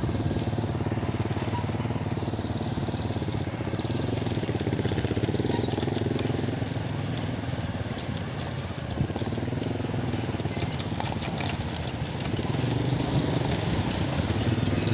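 Motorcycle engine running while riding, its note rising and falling a few times with the throttle, over steady road and wind noise.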